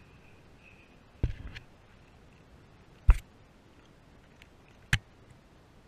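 Handling noise as a small fish is unhooked by hand right at a chest-mounted camera. There is a knock with a short rustle about a second in, a louder sharp knock about three seconds in, and another knock near five seconds.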